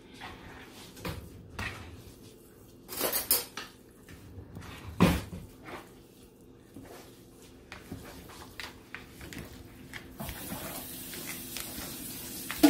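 Cutlery and dishes clinking and knocking, with a few louder knocks about three and five seconds in. About ten seconds in, a steady hiss of water running from a tap starts.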